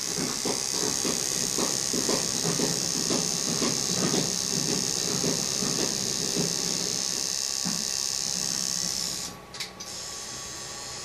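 Handheld permanent-makeup tattoo machine running with a steady high-pitched hiss while eyeliner is tattooed along the eyelid, with low ticks about three times a second under it. It stops about nine seconds in, with a couple of clicks.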